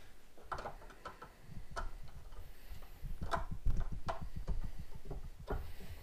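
Hand screwdriver turning a duplex outlet's mounting screws into a metal electrical box: irregular small clicks and scrapes of the tool on the screws, with some handling rumble.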